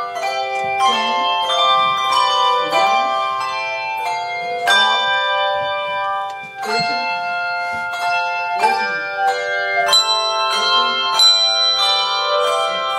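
Bells being played as a practice tune: a run of struck notes at an uneven pace, each ringing on under the next.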